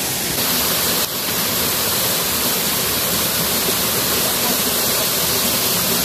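River water rushing steadily, an even loud hiss with a brief break about a second in.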